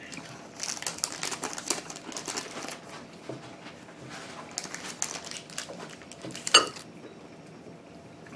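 Candy bar wrapper crinkling and rustling as a chocolate bar is handled and broken into pieces, in a dense patter of small clicks. A single sharp click about six and a half seconds in.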